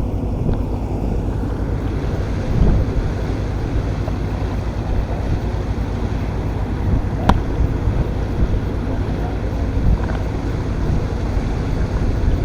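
Wind buffeting the microphone over the steady low rumble of a lake cruise boat's engine under way. A single sharp click comes about seven seconds in.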